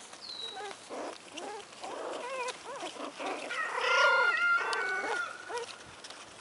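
Four-week-old American Hairless Terrier puppies whining and whimpering in short cries that rise and fall. The cries grow louder and overlap about four seconds in, with a few held notes.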